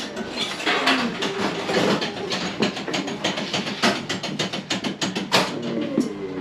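Irregular clicking and clattering of a mechanism, typical of an old coin-operated working model running behind glass.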